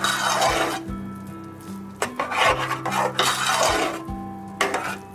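Steel ladle stirring and scraping through soft, wet cooked rice and dal in an aluminium pressure cooker, in two long scraping strokes with a few sharp knocks of the ladle against the pot. Background music plays under it.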